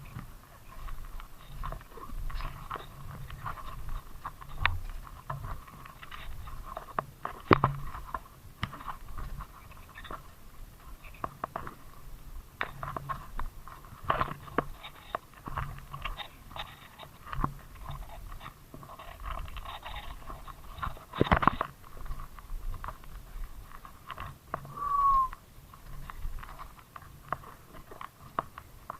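Mountain bike being ridden over a rough road: a continuous run of irregular clicks, crunches and rattles from the tyres and bike, with a louder cluster about two-thirds of the way through and a short falling squeak a little later.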